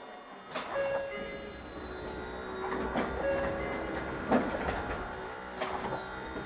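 Tokyu 9000 series electric train's motor car running: about half a second in, the traction motors and inverter come on with several steady whining tones over a low rumble of wheels on rail. Three high whistles fall in pitch.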